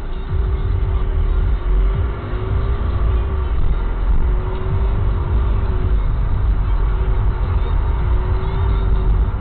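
Low, steady rumble of a car moving off slowly from a standstill, heard inside the cabin, with a thin wavering tone above it that comes and goes.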